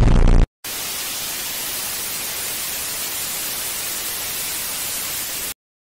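TV static: a steady, even hiss of white noise that starts abruptly after a brief dropout and cuts off suddenly near the end. In the first half second, the music of a TV commercial is still playing loudly until it is cut off.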